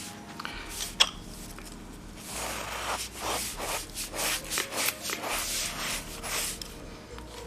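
A brush rubbing over carpet pile in a quick series of strokes, about two a second, fluffing the fibres over a hot-glued seam repair. A single sharp click comes about a second in, before the strokes.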